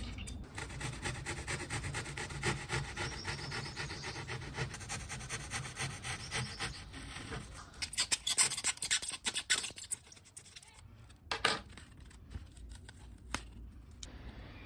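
Hobby knife blade cutting through thermocol (expanded polystyrene foam) in quick repeated strokes. From about eight seconds in the strokes come as fewer, louder separate cuts, with a few single cuts near the end.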